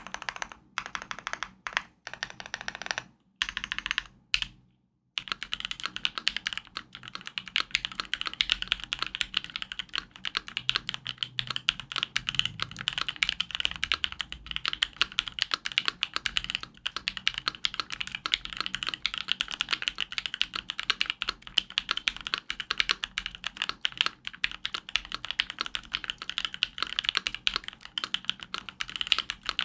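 Typing on a Keychron Q3 mechanical keyboard fitted with lubed and filmed Thick Thock Marshmallow switches, its case taped and given the Force Break mod. It starts in short bursts broken by brief silences, then settles into continuous fast keystrokes about five seconds in.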